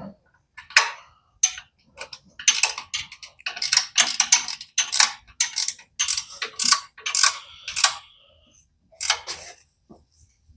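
Ratchet wrench clicking in short, irregular strokes as bolts are tightened down on an air compressor after a new drive belt is tensioned.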